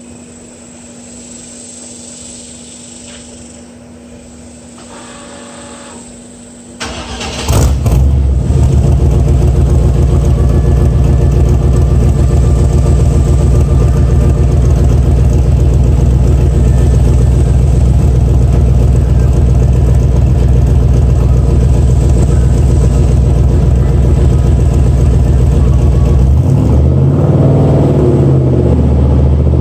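Jeepster Commando's 5.7-litre V8, breathing through shortie headers and a 2.5-inch dual exhaust with no cats and Cherry Bomb Salute mufflers, cranks and starts about seven seconds in. It then idles loudly and steadily, and near the end it is revved up twice.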